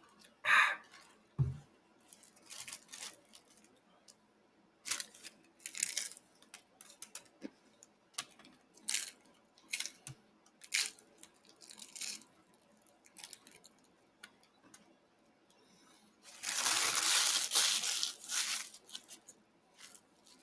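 Hard-shell taco being eaten fast: irregular crunching and rustling, with a louder rustle of about two seconds near the end.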